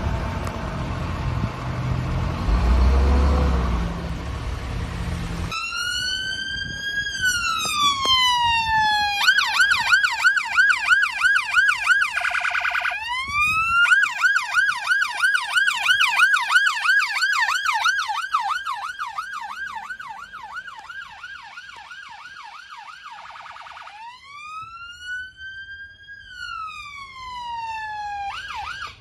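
A vehicle's engine runs for a few seconds, then an emergency vehicle's electronic siren starts. It gives a rising and falling wail, then a fast repeated yelp broken twice by a quicker warble, then another wail near the end. The siren fades as the vehicle drives away.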